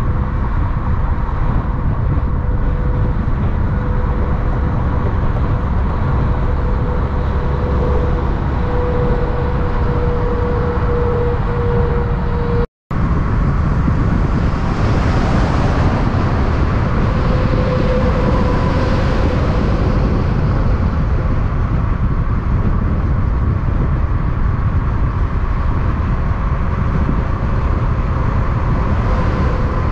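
Heavy diesel semi-truck engines with loud exhaust pipes, a steady deep rumble with a faint steady tone over it. It drops out for an instant about 13 seconds in and picks up again.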